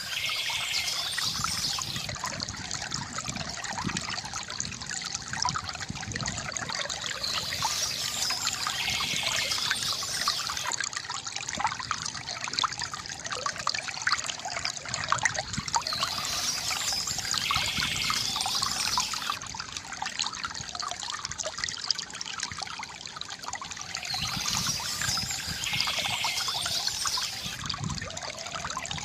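Water from a bamboo fountain trickling and splashing steadily. Bursts of bird chirping recur about every eight seconds over it.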